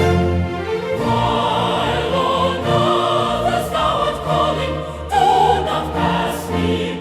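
Choral hymn music: a choir holding sustained notes over an orchestral accompaniment.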